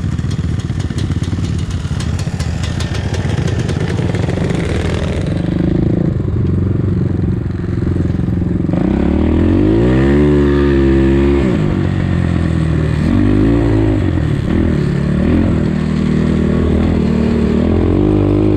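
Dirt bike engine heard from the rider's seat while riding, with a rapid clicking rattle in the first few seconds. About halfway through the engine revs up sharply in pitch, holds for a couple of seconds, then eases off, followed by a few shorter revs near the end.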